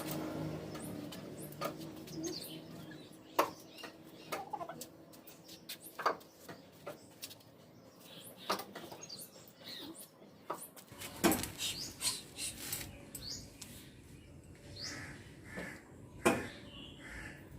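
Scattered light metallic clicks and knocks at irregular intervals as the car's jack and its crank hook are fitted and worked to lift the car.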